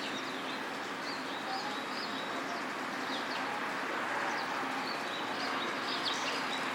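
Birds chirping, with short, high calls repeating over a steady outdoor background hum.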